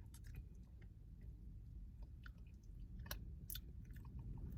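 Faint chewing with scattered small clicks and mouth smacks as a snack is eaten.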